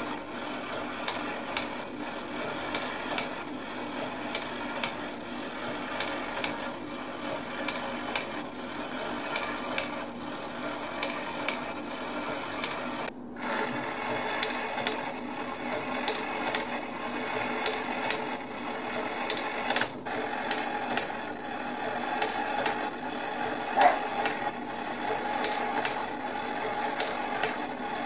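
Old, dirty Gordian Hettich Sohn Black Forest cuckoo clock movement with its strike train running out of the case: a steady rasping whirr of the gear train, with a sharp click a little more than once a second. The sound breaks off briefly about halfway through.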